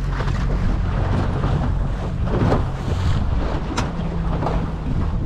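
Small boat's outboard motor idling with a steady low hum, with wind buffeting the microphone in gusts.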